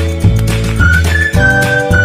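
Background music: a high, held lead melody over bass notes that change about every half second.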